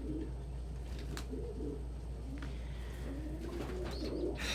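Domestic pigeons cooing, low warbling calls overlapping one another, with a short rustle near the end.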